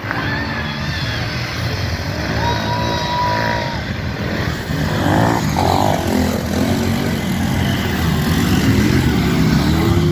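Harley-Davidson Pan America 1250's V-twin engine being ridden off-road, its pitch rising and falling repeatedly as the throttle opens and closes, getting louder about halfway through.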